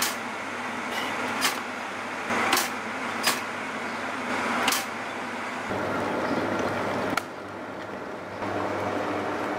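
A stainless two-slice toaster clicking sharply five times as its controls are worked, over a steady hum. Then a glass electric kettle heating water to the boil, a steady rumbling hum.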